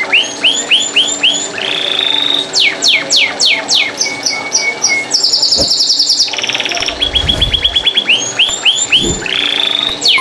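Domestic canary singing a continuous song of repeated phrases: runs of quick rising notes, rapid trills and fast downward sweeps, each phrase changing to the next every second or two. A few low thuds and rumbles sound under the song in the second half.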